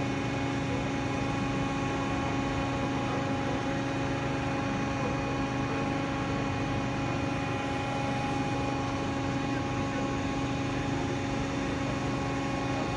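Hydraulic machinery running steadily: a constant hum made of several steady tones, with no change over the whole stretch.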